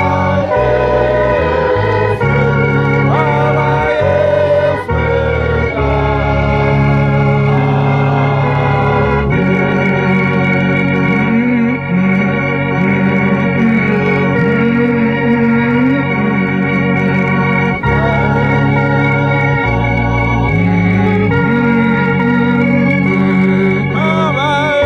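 Organ-style keyboard music: sustained chords over a bass that changes every second or two, with a wavering melody line above.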